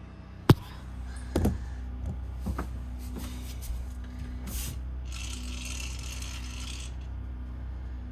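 Handling noises from fishing line and gear by the ice hole: a sharp click about half a second in, then a few knocks and light clicks, and a couple of seconds of rustling, all over a steady low hum.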